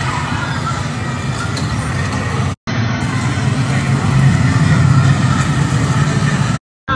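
Steady low rumbling noise over outdoor crowd background, louder in the second half. It drops out briefly twice, about two and a half seconds in and near the end.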